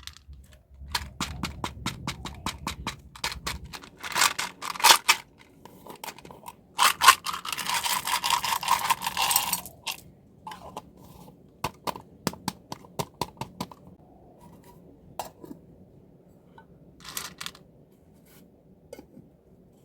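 Close handling of small packaging and candies: a quick run of light clicks and taps, brief scrapes, and one scraping stretch of about three seconds, followed by scattered single clicks.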